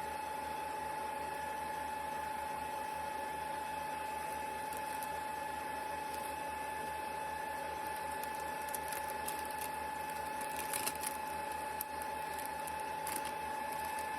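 A steady mechanical hum with a constant high whine over a fast, even low pulsing, and a few faint clicks about nine to thirteen seconds in.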